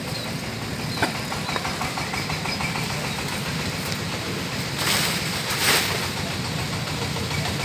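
An engine running steadily at idle, with a sharp click about a second in and two short bursts of hiss near the middle.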